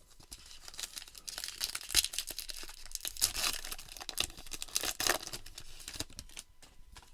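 Plastic wrapper of a baseball card pack being torn open and crinkled, with cards rustling, as an irregular run of crackling with louder crackles about two, three and five seconds in.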